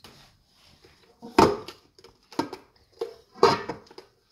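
Hands squeezing and kneading soft, sticky homemade glue slime in a stainless steel mixing bowl: wet squishing in about four separate bursts, the loudest about a second and a half in.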